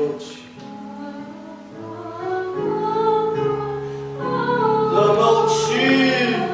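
Music with singing: long held notes in several parts, with a wavering sung line that swells louder about two seconds in.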